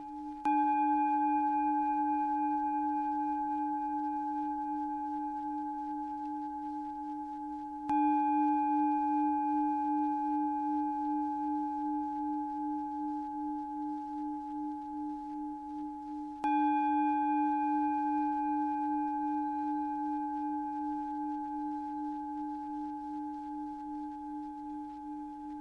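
A singing bowl struck three times, about eight seconds apart. Each strike rings on with a long, slow fade and a gentle wavering in the tone, mixed with higher overtones.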